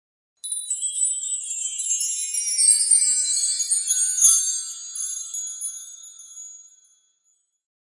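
Music of high, tinkling chimes: a cascade of bright ringing tones that starts suddenly and fades away over about six seconds.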